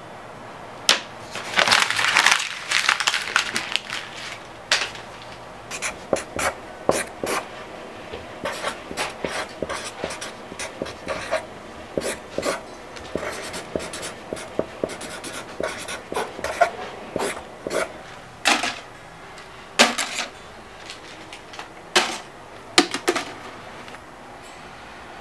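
Felt-tip marker scratching across paper in short, irregular strokes, with a dense scribbling burst about two seconds in.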